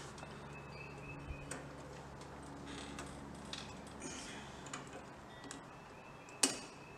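Faint handling noise: scattered light clicks and taps as a rubber fuel hose is worked onto a lawn mower carburetor's inlet, with one sharper click near the end.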